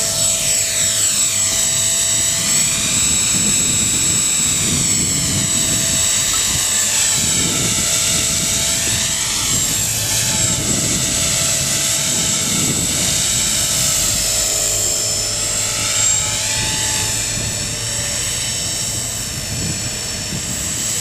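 Electric 450-size RC helicopter, an HK-450 clone of the T-Rex 450, flying: a steady high motor whine over the rotor blades' whoosh. Its tones sweep up and down as it moves about.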